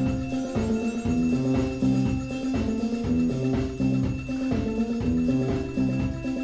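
A drum kit plays at a fast tempo while a robot glockenspiel strikes notes in time with it. The glockenspiel's tempo follows the drummer through beat tracking.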